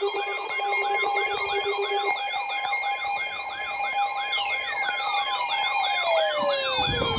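Electronic warbling siren, rising and falling about three times a second, over a steady two-tone alert signal that marks the start of an Emergency Alert System warning. About four seconds in, a second siren tone sweeps steadily down in pitch.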